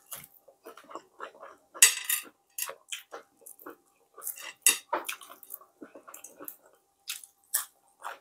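Close-up eating sounds of fried tilapia being picked apart by hand and sucked off the fingers and bones: an irregular string of short crisp crackles and wet mouth smacks, loudest about two seconds in and again near five seconds.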